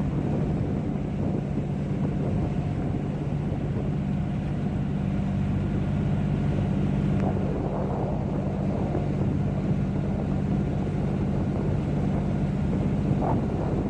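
Tour boat's engine running at a steady speed, a constant low hum with water and wind noise over it.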